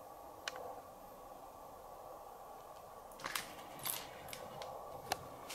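Faint clicks and taps of a 1/6-scale action figure and its small plastic knife accessory being handled and posed: one click about half a second in, then several more in the second half, over a steady low room hum.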